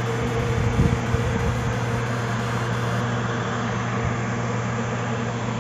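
Steady electric hum and rushing air of room fans running.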